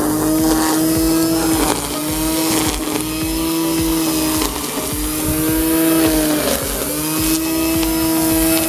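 Ozito 500 W electric line trimmer running at speed, a steady whine that dips slightly and recovers every second or two as the spinning line cuts into long grass.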